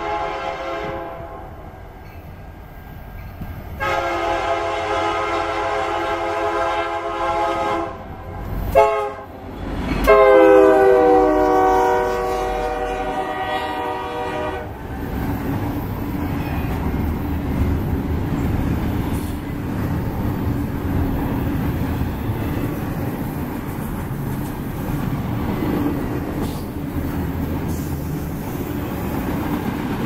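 Horn on a lash-up of Union Pacific EMD SD70M diesel locomotives, sounding long blasts, the last dropping in pitch as the lead unit passes. There is a brief loud thump between blasts. From about halfway on, double-stack intermodal cars roll past with a steady rumble and wheel clatter.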